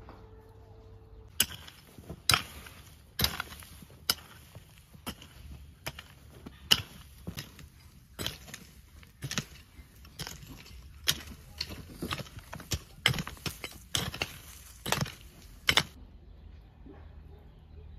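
A series of sharp, irregular knocks or chops, roughly two a second, starting about a second and a half in and stopping shortly before the end.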